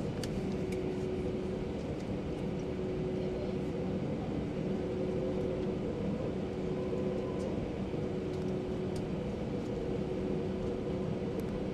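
Cabin noise of an Airbus A320-232 taxiing, its IAE V2500 turbofan engines at idle: a steady hum with a constant whine-like tone held through it.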